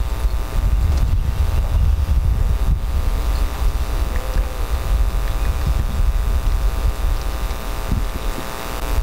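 Fluctuating low rumble on an outdoor microphone, like wind, under a steady electrical hum.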